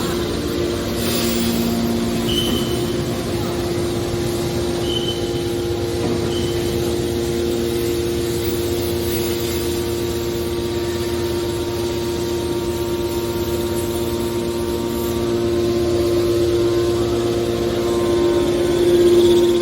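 Hydraulic baler's power unit running, a steady machine hum held at one pitch, with a few short high squeaks in the first seven seconds and a slight swell near the end.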